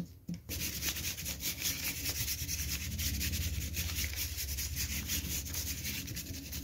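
Distress ink pad rubbed quickly back and forth over a crumpled brown paper grocery bag, a fast run of rubbing strokes starting about half a second in.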